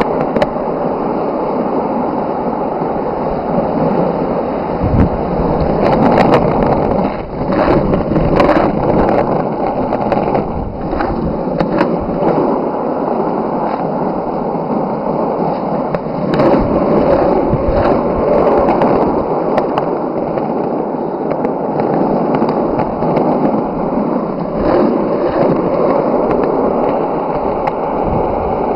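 Skateboard wheels rolling over an asphalt road, a steady rumble with occasional sharp clicks.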